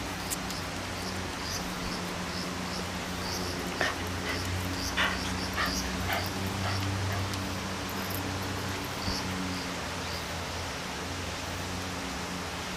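Shiba inus whining faintly while being petted, with a few clicks around the middle, over a low steady hum.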